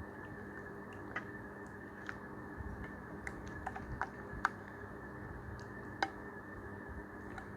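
Slime being worked by hand, giving small sharp sticky clicks and pops at an irregular pace over a steady hiss.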